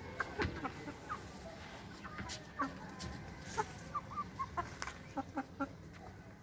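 Aseel chickens clucking: a string of short, separate calls, coming more thickly in the second half.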